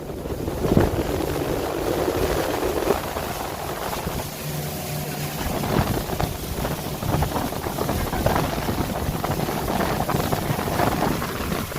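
Motorboat running at speed, engine drone mixed with rushing water and wind buffeting the microphone.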